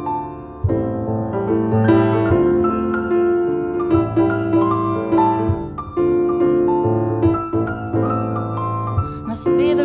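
Grand piano playing slow, sustained chords that change about every one to two seconds, with a held bass note under each chord.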